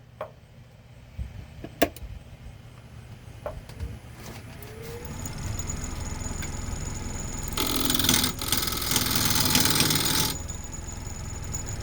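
A few knocks, then a wood lathe motor running with a steady hum and a thin high whine. For about three seconds near the end, a carbide tool cuts into the spinning bowl blank, roughing it toward round, with a brief break partway through. The lathe keeps running after the cut.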